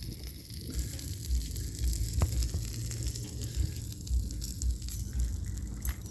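Spilled engine oil sizzling and crackling as it burns on hot metal and the ground after the engine blew apart, with a few sharp pops and a gusty low rumble of wind on the microphone.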